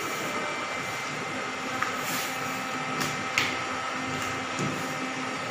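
Steady electrical hum and fan whir of a CCTV monitoring room's equipment, with a couple of faint clicks about two and three and a half seconds in.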